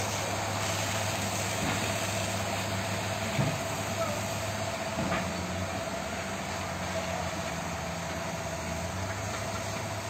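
An engine running steadily with an even low hum, with the steady hiss of water spraying from a fire hose over it. A couple of faint knocks come a few seconds in.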